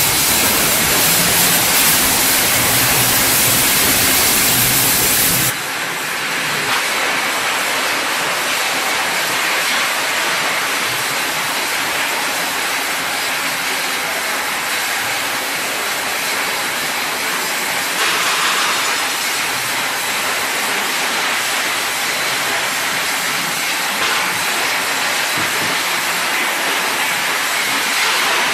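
PVC wire coating extrusion line running: a steady machine hum and hiss, with cooling water pouring from a tap into the trough. About five and a half seconds in the low hum falls away, leaving a steady hiss.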